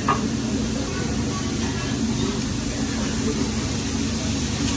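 Chicken sizzling on a hot hibachi griddle, a steady hiss, over a steady low hum, with one short tap right at the start.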